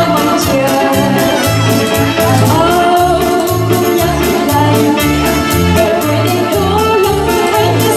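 A woman singing into a microphone over an electronic keyboard accompaniment with a steady, even beat.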